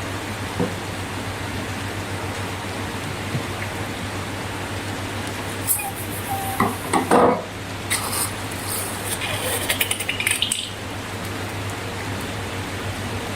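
Steady background hiss with a low hum. About halfway through come several seconds of clinking, knocking and crackling handling noises, then the hiss carries on alone.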